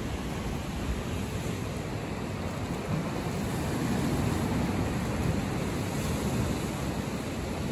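Ocean surf washing steadily against a rocky shoreline, with wind on the microphone.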